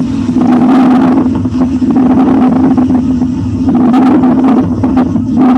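Recorded lung auscultation sound of subcrepitant rales (bubbling, moist crackles): dense crackling over breath sounds with a steady low hum beneath. The crackling comes from air bubbling through secretions in the bronchial lumen.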